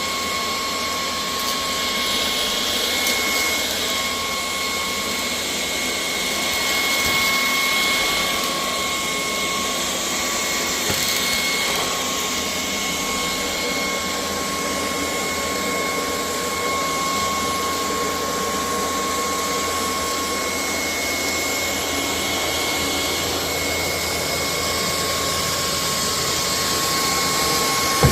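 Cordless stick vacuum cleaner running steadily: a rush of air with a high motor whine, which fades for a few seconds after about twenty seconds and then comes back.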